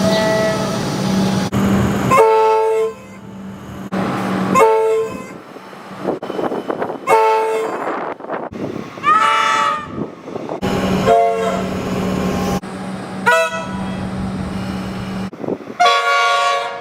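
Comeng train horns sounding in a run of short blasts, about seven in all, one every two seconds or so, each a chord of several tones, the clips cut abruptly one to the next.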